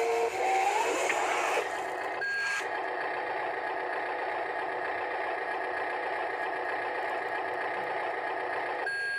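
Sound module of a Huina RC wheel loader playing a steady electronic engine sound. A short rising tone comes in the first second, and a single high reversing beep sounds about two seconds in as the loader backs up.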